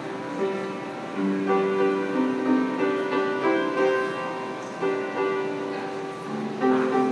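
Upright street piano played by hand: chords and melody notes struck about once a second, each left ringing.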